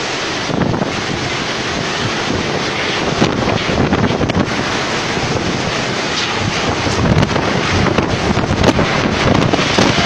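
Strong cyclone wind blowing in gusts and buffeting the phone's microphone, a steady rush of noise that swells and falls, louder in places in the second half.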